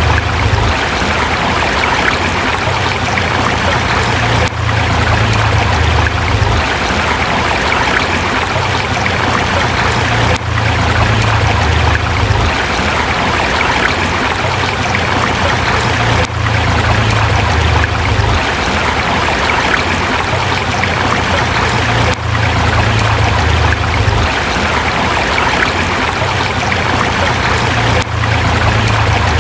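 A forest river rushing over rocks: a loud, steady wash of water with a low rumble underneath. The sound dips briefly about every six seconds.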